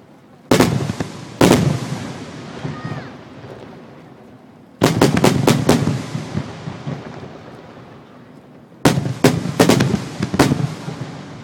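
Aerial fireworks shells bursting overhead. Two booms come about a second apart near the start, then a quick volley of about five bangs in the middle and another volley of about five near the end, each volley trailing off in a long fading echo.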